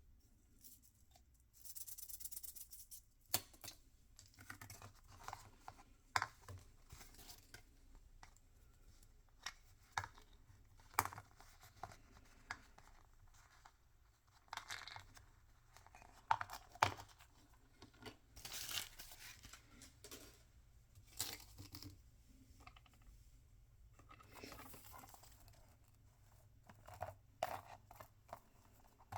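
Toy packaging being torn open and handled: a few bursts of tearing, with crinkling and scattered small clicks and taps in between.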